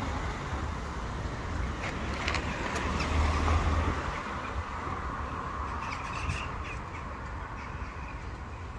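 Wind rumbling on the microphone, with a couple of short, harsh bird calls. Faint clicks come from a cat crunching dry kibble.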